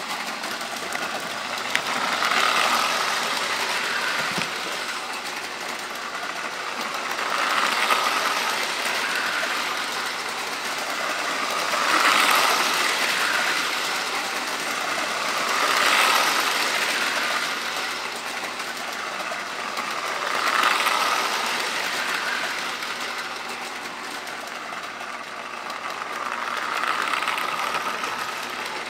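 Lionel toy train running around a loop of tinplate track, a steady metallic rattle and whir of wheels and motor. It swells and fades about every five seconds as the train comes near and goes away on each lap.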